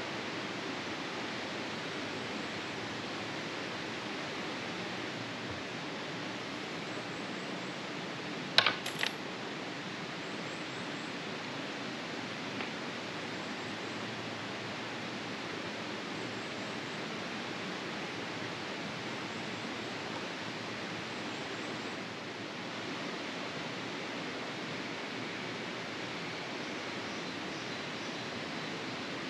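Steady, even rushing outdoor ambience, with a couple of sharp clicks about eight and a half seconds in.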